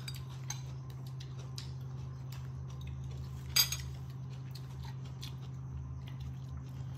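Light clicks and rustles of hands arranging fresh greens and vegetable stems in a woven basket, with one sharper click about three and a half seconds in, over a steady low hum.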